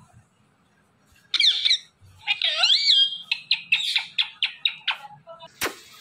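Indian ringneck parakeet squawking and chattering: a short harsh squawk about a second in, then a run of rapid, high, chirping notes with whistled glides up and down. A sharp click near the end.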